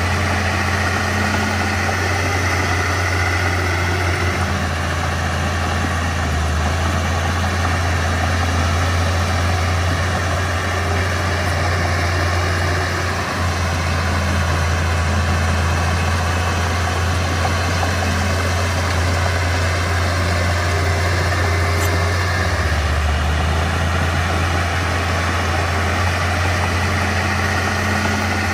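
Mitsubishi BD2F bulldozer's diesel engine running steadily, its low drone shifting slightly in pitch a few times.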